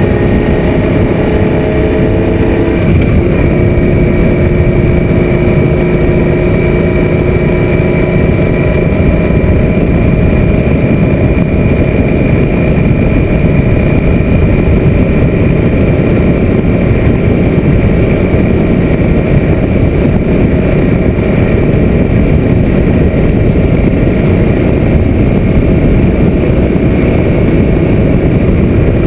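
Suzuki M800 V-twin motorcycle cruising steadily at road speed, its engine running under a loud, steady rush of wind over the mounted action camera. A few pitched engine tones fade out in the first few seconds.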